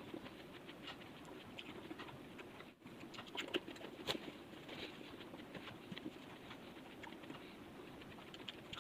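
Faint mouth sounds of someone chewing bell fruit (makopa, wax apple): soft, scattered clicks and crackles of crisp, watery fruit, a few louder ones a few seconds in.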